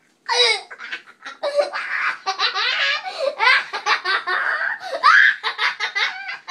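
A young child laughing hard, in high-pitched giggles that keep breaking off and starting again.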